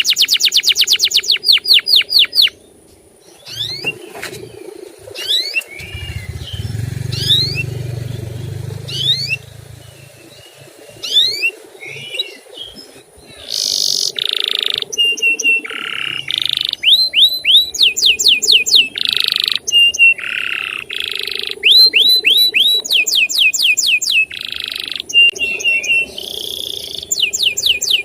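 Male canary singing in phrases of fast repeated chirps, rising and falling whistled sweeps and short held notes, with short pauses between phrases. A low rumble runs for about three seconds starting some six seconds in.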